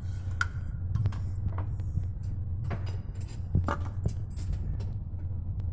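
A car engine running steadily at idle, heard as a low hum, with scattered light metallic clicks and jingles over it.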